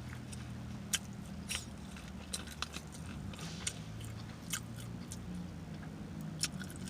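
Close-up mouth sounds of chewing a mouthful of cold-cut sub: irregular wet smacking clicks of lips and tongue, over a faint low steady hum.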